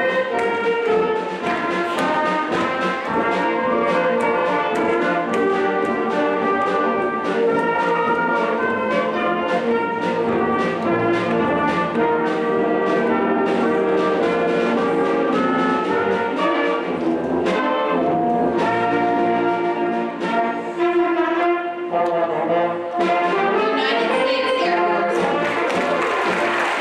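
Band music with prominent brass, trumpets and trombones playing a melody over full harmony. Applause starts to rise near the end.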